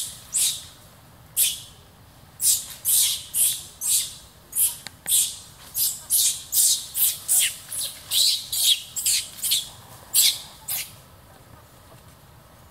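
Baby long-tailed macaque screaming in distress, a long run of short, shrill, high-pitched cries about two to three a second that stop shortly before the end.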